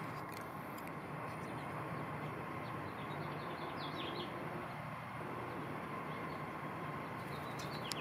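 Steady background hum and hiss, with a few faint, high, short bird chirps around the middle.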